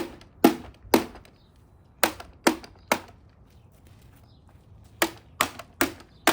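A Trifo robot vacuum's hard plastic body being struck again and again: sharp blows about half a second apart in three runs of three or four, with a pause of about two seconds in the middle.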